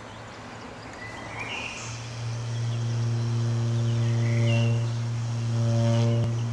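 A saxophone holding one long, low note that swells louder about two seconds in, with short bird chirps over it now and then.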